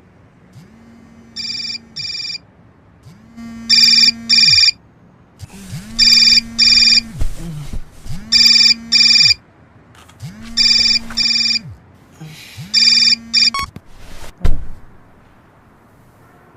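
Electronic telephone-style ringtone ringing in pairs, six double rings about two seconds apart, each pair with a low hum beneath it. The ringing stops and a single loud low thud follows, the loudest sound here.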